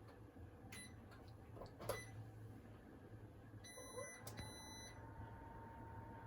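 Two short electronic beeps close together about four seconds in, over quiet room tone. A couple of faint clinks come earlier, and a thin faint tone rises and then holds steady after the beeps.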